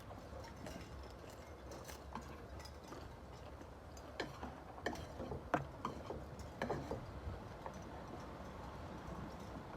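Scattered small clicks and taps of people eating a shared seafood meal, such as utensils and fingers on plates and food being picked at, mostly in a cluster midway through.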